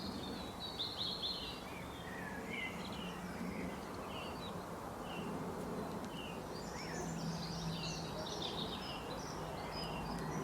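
Several small birds chirping and calling: many short, high notes scattered throughout, busiest in the second half, over a steady low hum and constant outdoor background noise.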